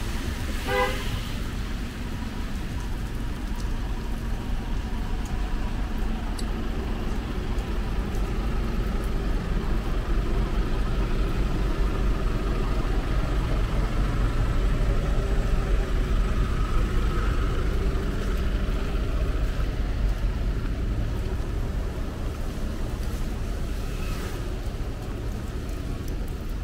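A car horn gives one short toot about a second in, over the steady rumble of traffic on a wet road in heavy rain. The traffic noise swells through the middle.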